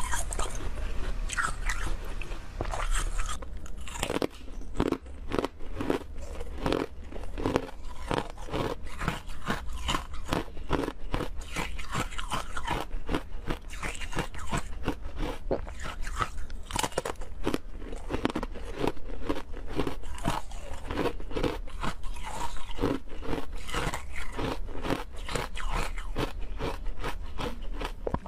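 Frozen milk ice being bitten and chewed close to the microphone: a dense run of crunches, several a second, with a short change in the background about four seconds in where one clip gives way to the next.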